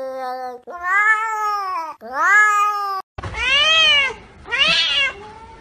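Domestic cats meowing: a grey Scottish Fold gives long, drawn-out meows, one trailing off and two more following. After a cut, a white cat gives two shorter, arching meows over a background hiss.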